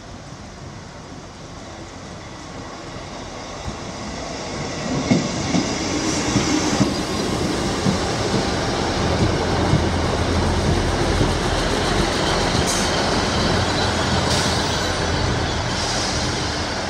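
Northern Class 158 diesel multiple unit running close past on the platform road. Its engine and wheel rumble build up over the first five seconds, then come a run of knocks from the wheels over the rail joints and a steady low drone. A couple of brief high wheel squeals come near the end.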